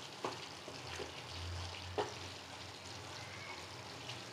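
Faint stirring of thick chicken curry gravy in a pan with a wooden spatula, with a couple of soft knocks of the spatula against the pan over the low sizzle of the simmering gravy.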